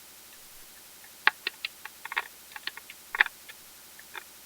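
Irregular clicks and light knocks of a plastic portable hard-drive enclosure being handled as the 2.5-inch drive inside is tugged at and pulled. The clicks start about a second in and come in an uneven cluster of a dozen or so.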